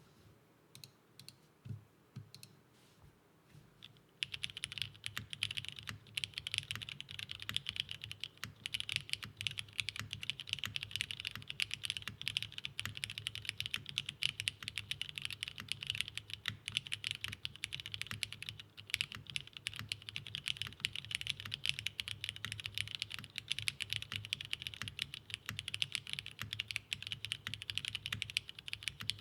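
Mechanical keyboard with lubed Cherry MX Black linear switches on an aluminium half plate, with GMK keycaps: a few scattered keystrokes, then about four seconds in, fast continuous typing with a dense stream of key clacks and a low thock under them.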